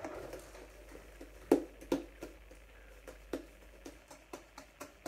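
Homemade slime being pushed and pressed by hand into a plastic measuring jug: a run of irregular sticky clicks and squelches, the loudest about one and a half seconds in.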